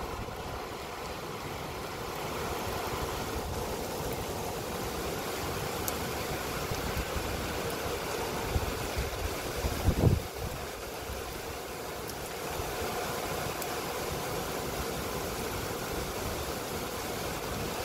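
Heavy rain falling steadily, a dense, even hiss, with a brief low rumble about ten seconds in.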